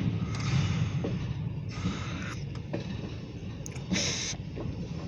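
Freight train coming into and passing the station, heard as a steady low rumble with a few short hissing noises.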